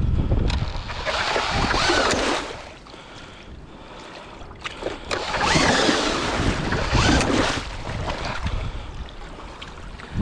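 DeWalt cordless drill spinning a K-Drill ice auger through slush and water in a hole in the ice, in two runs: one over roughly the first two seconds, another from about five seconds in to nearly eight. Wind noise on the microphone underneath.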